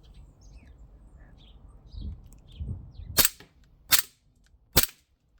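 Cybergun Desert Eagle 50AE CO2 blowback BB pistol firing three shots a little under a second apart, each a sharp crack of the CO2 discharge with the slide cycling. The shots start about three seconds in.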